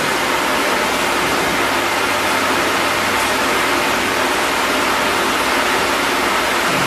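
Fully automatic wood lathe running, a steady even rushing noise of machinery.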